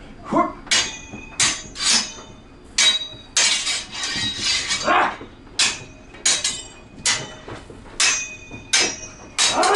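Steel swords clashing in a fencing bout: a quick, uneven run of a dozen or more sharp strikes, each with a brief metallic ring, with a dense flurry of blows about three and a half seconds in.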